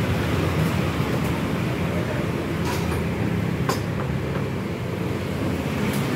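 Steady low rumble of background noise, with a few short sharp clinks of a metal ladle against ceramic bowls, one near three seconds in and one near four seconds in.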